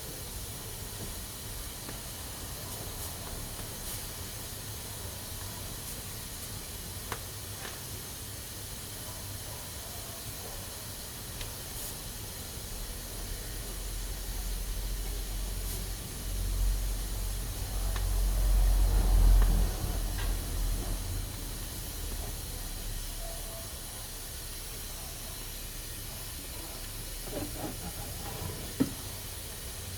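Pressure cooker hissing steadily as steam escapes from its valve. A low rumble swells up in the middle and fades away again, and a couple of faint clicks come near the end.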